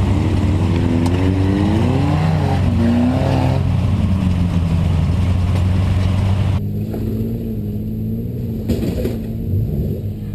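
Off-road truck engine running at a steady speed, a loud even hum. About two-thirds of the way through it changes abruptly to a quieter, duller engine sound.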